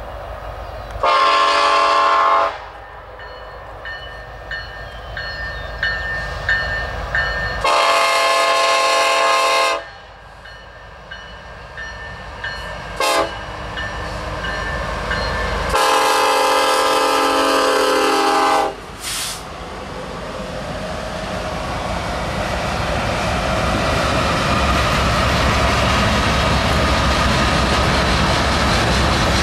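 Diesel freight locomotive's multi-chime air horn sounding the grade-crossing signal: long, long, short, long, then a brief extra toot. The train then rolls past close by, its locomotive and wheel-on-rail noise growing steadily louder.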